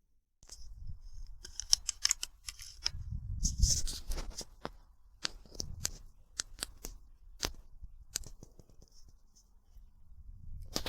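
Irregular sharp clicks and taps mixed with rustling, like gear being handled close to the microphone, with a low rumble about three to four seconds in.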